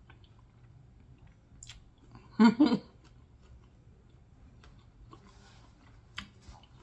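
A person chewing food close to the microphone, with faint mouth clicks and one short, louder double burst about two and a half seconds in.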